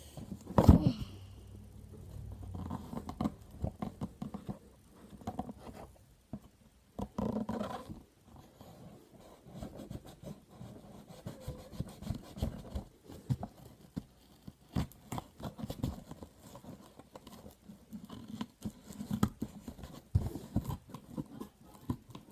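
Cardboard and plastic packaging being handled and pulled apart to free a toy blaster: irregular clicks, knocks, scrapes and rustling, with one sharp knock just under a second in.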